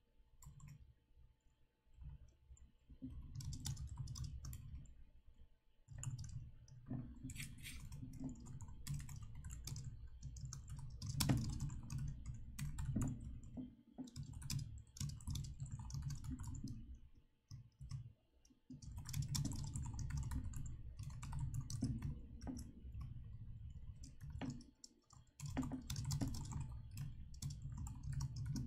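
Typing on a computer keyboard in runs of quick keystrokes, each run with a dull thud under the clicks, broken by short pauses of about a second.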